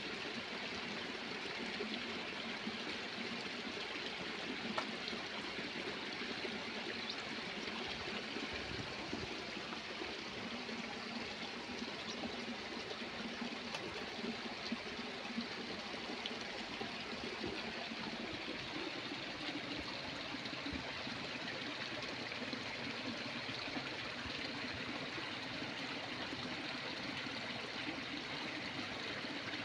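A steady rushing hiss of running water, even throughout, with a few faint clicks.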